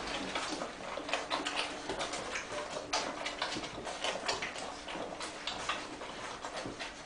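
Five-week-old Weimaraner puppies moving about and playing, making an irregular run of small clicks and ticks, like claws and paws on a hard floor.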